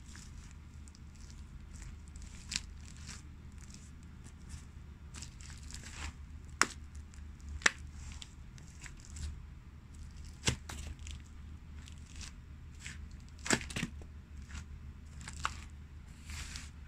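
Patent-leather loafers with thick lug soles treading on and crushing chunks of raw pumpkin and its seeds: a run of wet crunching and crackling, with several sharp, loud cracks, over a steady low hum.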